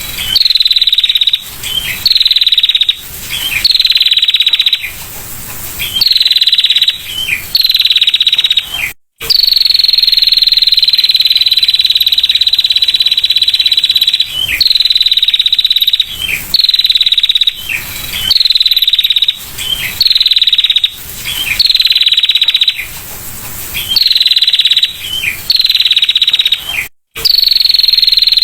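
Female prinia (prenjak) giving its rapid, high 'ngetir' trill, loud and repeated in bursts about a second long, with one unbroken trill of about five seconds. The sound cuts out abruptly twice, as in a looped recording.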